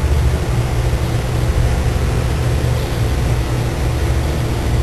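Large power-plant machinery running with a loud, steady low drone and a faint even throb.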